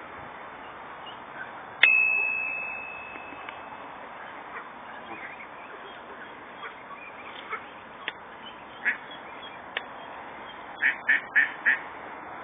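Canada geese and ducks calling with short honks and quacks while crowding in to be fed. The calls are scattered through the second half and end in four quick calls in a row near the end. About two seconds in comes a single sharp ringing ding that fades over a second or so.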